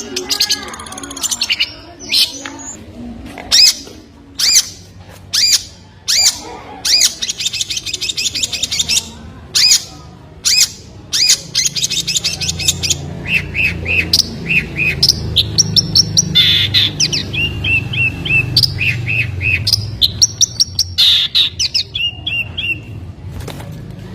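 Small songbird chirping and singing: many sharp high chirps, a fast trill about seven seconds in, and runs of quick repeated notes later on. A low rumble sits under it in the second half.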